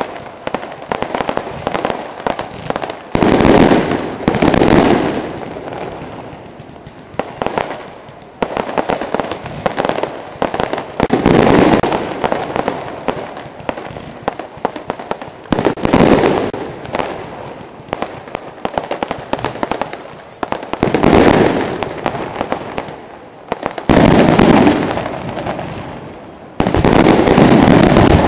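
Fireworks display: a steady run of sharp cracks and pops, with a loud blast every few seconds, each one dying away over a second or two.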